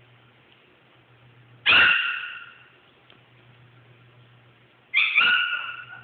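Shih tzu giving two sharp, high barks at a puppy, about three seconds apart; each dies away quickly, and the second comes as a quick double yap.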